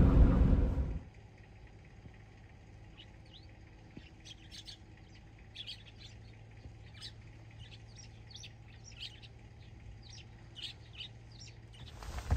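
Train running noise for about the first second, cutting off sharply; then faint, scattered chirping of small birds over a low steady hum.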